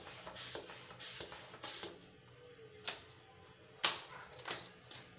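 Homemade pump-action PVC alcohol gun being worked: three or four short hissing whooshes in the first two seconds, then a few sharp clicks, the loudest and sharpest about four seconds in.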